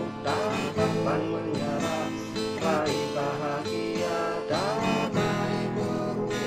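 Instrumental passage of a march song (mars), with strummed guitar and a melody line, and no singing.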